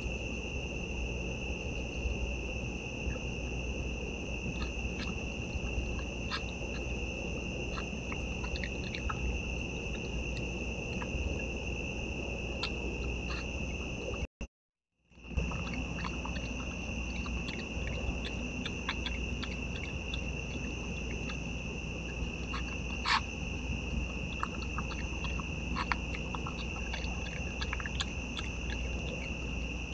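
Steady chorus of night insects trilling, with irregular soft clicks and crunches of an opossum chewing food from a bowl. The sound drops out completely for under a second about halfway through.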